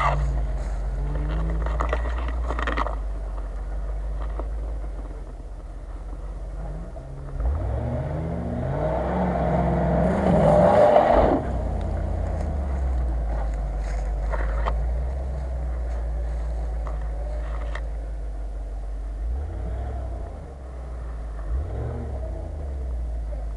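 Land Rover Discovery II engine running under load as it climbs a steep bank, rising in revs from about seven seconds in and dropping off sharply a few seconds later. Two shorter rises in revs come near the end.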